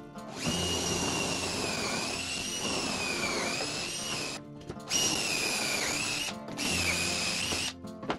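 Makita cordless drill boring pocket holes through a pocket-hole jig into a pine board. It makes three runs, a long one of about four seconds and then two shorter ones, and its high whine sags in pitch each time the bit bites under load.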